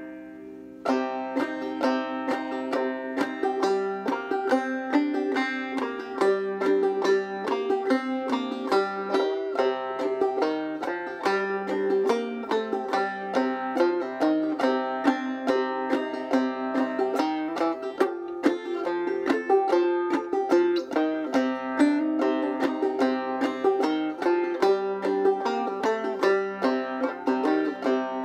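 Five-string banjo played clawhammer style in double C tuning (gCGCD): a slow, even run of struck notes and brushed chords, with a steady high note ringing through. It opens on a chord dying away, and the picking starts about a second in.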